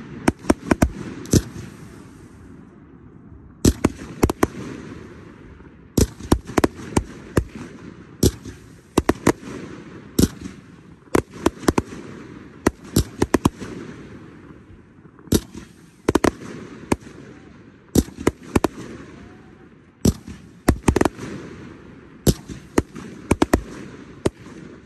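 Aerial fireworks going off in volleys: clusters of sharp bangs and pops come every couple of seconds, with a steady rushing noise between them.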